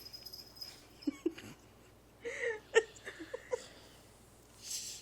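A sleeping dog snoring: short, squeaky nasal breaths and a breathy exhale near the end, with one sharp click about three seconds in.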